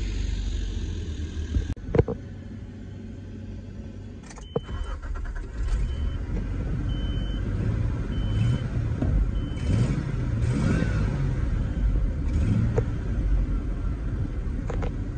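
A 1999 Nissan Frontier pickup heard from inside the cab. A sharp thump comes about two seconds in, then a click. A dashboard warning chime beeps five times, about once a second, while the engine starts and settles into a steady idle.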